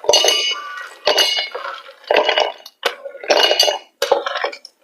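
Handfuls of nuts and dried fruit tipped into a steel mixer-grinder jar, clinking and rattling against the metal in about five separate bursts, roughly one a second.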